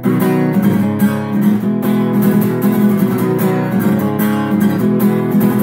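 Acoustic guitar strummed in a steady rhythm of chords, without singing.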